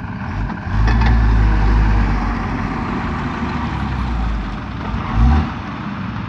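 Heavy vehicle engines labouring as a tractor tries to tow a mud-stuck loaded truck free. A deep engine note surges up about a second in and holds for a couple of seconds before easing. There is a brief rising rev near the end.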